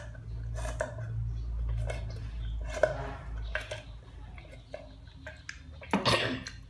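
Sipping milk tea through a straw and chewing soft tapioca pearls: small wet clicks and slurps. About six seconds in, a louder clatter as the glass mug with ice is set down on the wooden table.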